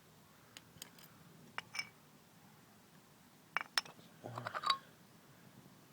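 Small hard objects clinking and knocking as they are handled and set down: a few separate clicks, then a quick run of ringing clinks about four seconds in.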